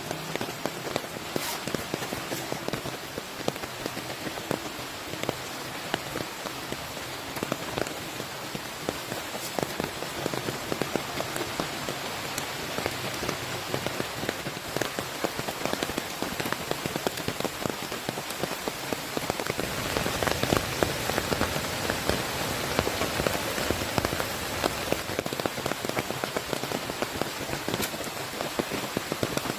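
Heavy rain falling and pattering on surfaces, a dense hiss full of individual drop ticks, growing heavier for a few seconds past the middle.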